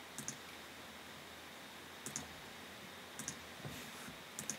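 Computer mouse clicking four times, each a quick double tick, over faint steady background hiss.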